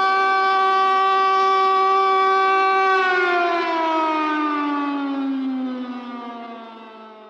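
Tsunami warning siren holding one steady tone, then, about three seconds in, its pitch slowly falls as the sound fades away.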